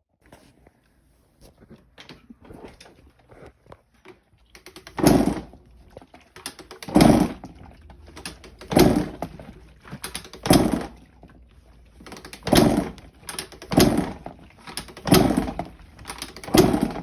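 Honda CR two-stroke dirt bike being kicked over again and again, about eight hard kicks roughly one every one and a half to two seconds, each a short thud and whoosh as the engine turns over without catching. The bike won't start.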